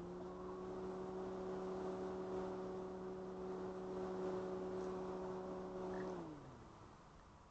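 A pan-tilt security camera's motor running as the camera turns: a hum that rises in pitch as it starts, holds steady for about six seconds, then drops in pitch and dies away near the end.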